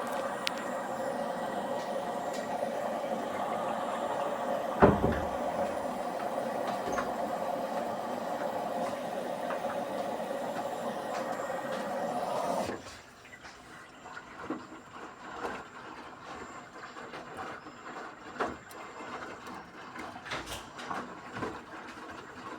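Hisense WF1Q8041BW washing machine taking in water as its cycle starts: a steady rush of water with one sharp knock about five seconds in. The flow cuts off suddenly a little past halfway, leaving only faint scattered clicks and knocks.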